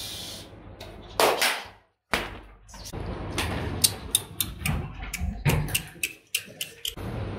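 A series of knocks and clicks: two louder thuds early in the run, then quicker sharp clicks, about three a second, through the second half.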